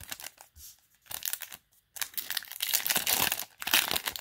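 Foil Yu-Gi-Oh! booster pack wrapper being torn open and crinkled in the hands, in several short spells of crackling.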